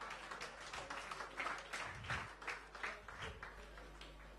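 Faint audience reaction to a joke: scattered hand claps and laughter at an uneven pace, thinning out toward the end.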